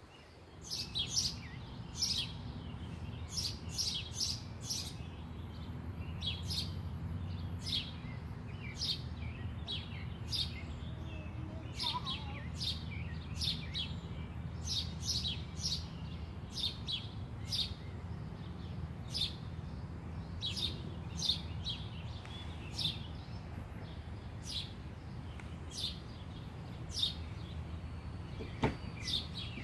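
Small birds chirping: short high chirps, about one or two a second, throughout, over a steady low hum.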